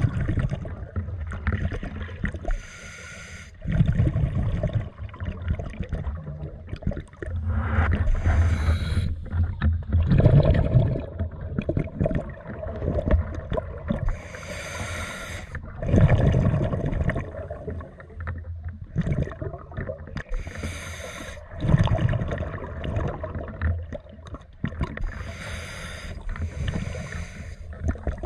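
Scuba diver breathing through a regulator underwater: a sharp hiss on each inhale, then a low bubbling rumble as the exhaled air leaves the exhaust valve. About five breaths, one every five to six seconds.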